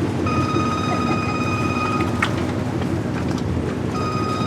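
Inboard engine of a 1960 Chris Craft Sportsman running by at speed, a steady low rumble. A high steady tone sounds twice over it, each for about two seconds.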